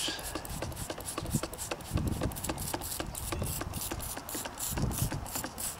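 Trigger spray bottle of homemade soapy water squirted rapidly, a quick run of short spritzes several a second, wetting a plugged tire's tread to check the plug for leaks.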